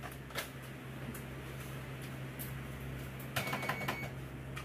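Light clicks and small rattles of something being handled, with a quick run of clicks about three and a half seconds in, over a steady low hum.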